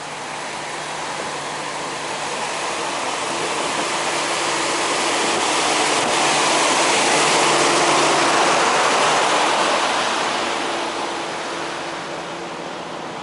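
Steady hiss and hum of idling semi trucks in a truck stop lot, growing louder to a peak about halfway through and then fading, as when passing close by one running truck.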